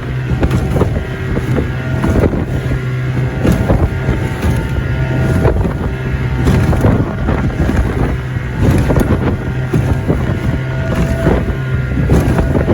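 Outboard motor on a 14-foot Livingston boat running steadily while the hull slaps into rough waves every second or two with splashes of spray, and wind buffets the microphone.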